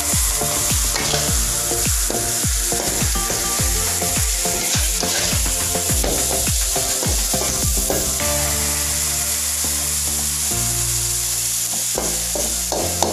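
Vegetables and small dried fish sizzling in a stainless steel wok while a metal spatula scrapes and tosses them, with repeated scraping strokes through the first half.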